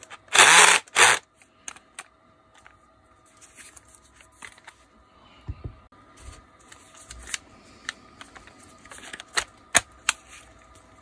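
Bosch GWB12V-10 12 V cordless angle drill motor run in several short bursts in the first second. Then quiet handling: a few sharp clicks and soft knocks as the drill is set down on tile and turned in the hand.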